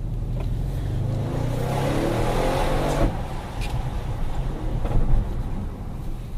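Audi RS6 Performance's twin-turbo V8 accelerating hard, its revs climbing for about three seconds and then dropping suddenly. A few sharp exhaust pops and crackles follow.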